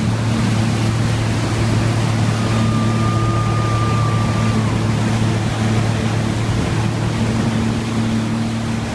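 Sea-Doo GTR 215 jet ski running at a steady speed, its engine a constant drone under loud rushing water and wind noise. A brief high steady tone sounds for about two seconds a few seconds in.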